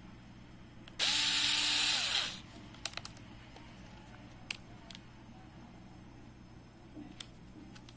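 Tonfon cordless electric screwdriver's motor running for about a second with a steady whine, then spinning down with falling pitch when released. A few light clicks follow.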